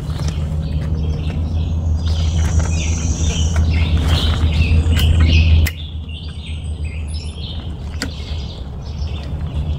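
Songbirds chirping in the forest over a steady low rumble that drops away suddenly about six seconds in, with a couple of sharp clicks.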